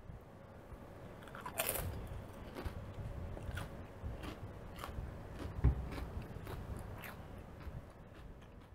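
Potato chips being bitten and chewed: a steady run of crisp crunches and cracks, with a sharp bite about two seconds in and the loudest crunch a little past halfway.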